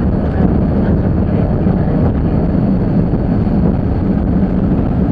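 Waggon und Maschinenbau railbus's diesel engine running steadily under way, with rumble from the moving railbus and a faint high whine. The engine note shifts at the very end.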